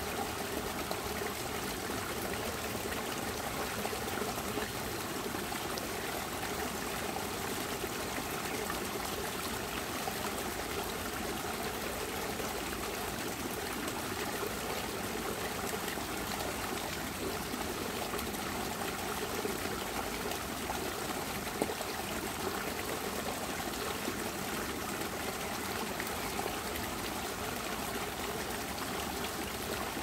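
Waterfall running steadily: an even, unbroken wash of falling water.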